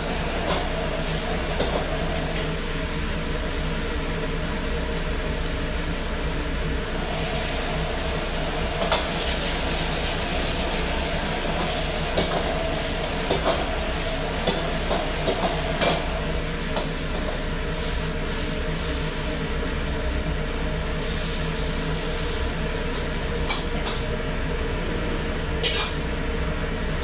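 Steady roar of a commercial kitchen's range hood fan and gas wok burner, with a metal spatula and ladle knocking and scraping in the wok as noodles are stir-fried. A louder hiss of frying comes in about seven seconds in and fades again.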